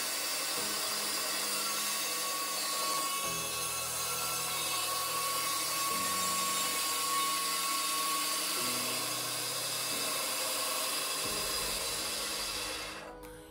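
FABTEC BS 312 bandsaw cutting through a block of wood: a steady, high-pitched rasping hiss with a thin whine from the running blade and motor. It cuts off about a second before the end.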